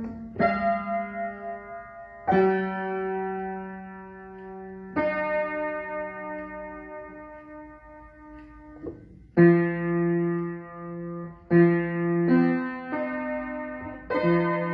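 Upright piano played slowly: chords struck every two to three seconds and left to ring, coming closer together after about nine seconds.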